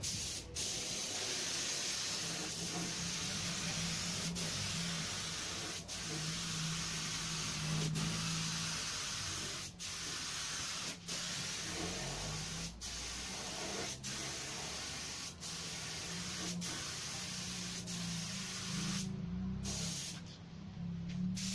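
Gravity-feed spray gun hissing as compressed air sprays clear coat onto a car door. The hiss breaks off briefly every second or two between passes and stops for about a second near the end.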